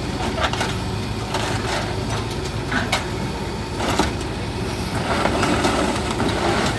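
Heavy demolition machinery running steadily, with several sharp cracks and crunches of a building being broken apart.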